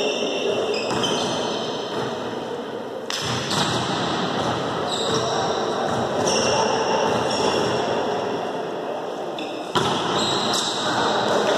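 Volleyball play in an echoing indoor gym: the ball is struck sharply twice, about three seconds in and again near the end, with short high squeaks of sneakers on the court floor and a murmur of voices.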